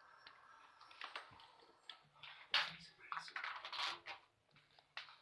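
A person snoring: a noisy, rasping breath with a low buzz under it, starting about two and a half seconds in and lasting roughly a second and a half.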